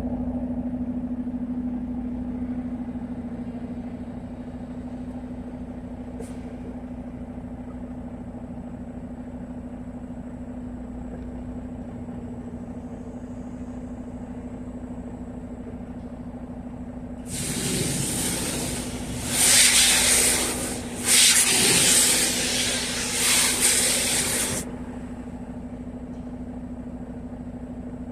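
High-pressure washer spray hissing in several loud bursts over about seven seconds, starting a little past the middle, over a steady low hum.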